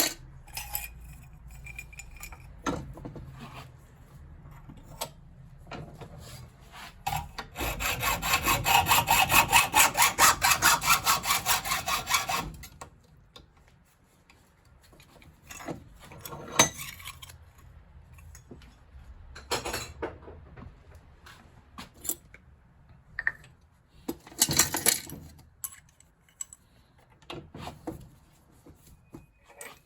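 Saw strokes, about four or five a second for some four seconds, going back and forth through metal parts stripped from a gas combi boiler. Before and after come scattered knocks and clinks of metal fittings being handled, with another short burst of scraping a little before the end.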